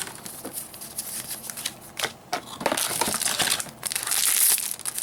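Foil trading-card booster-pack wrappers crinkling as packs are torn open and handled, in irregular rustling bursts with short crackles. The loudest stretch comes about two and a half to four and a half seconds in.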